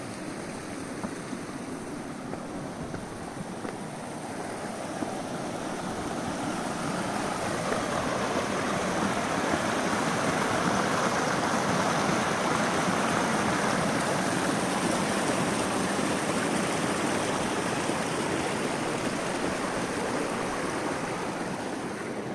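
Snowmelt stream rushing and splashing, a steady water noise that grows louder partway through and eases off again near the end.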